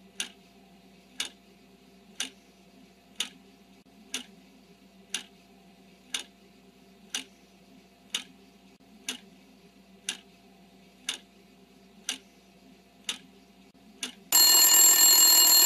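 Clock ticking as a countdown sound effect, about one tick a second over a faint steady hum. Near the end it gives way to a loud bell ringing for about two seconds, marking time up.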